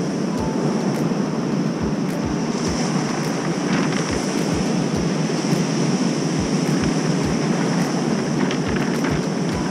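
Ocean surf breaking and washing onto a beach of rounded cobblestones: a steady rush of waves. Wind on the microphone adds irregular low thumps.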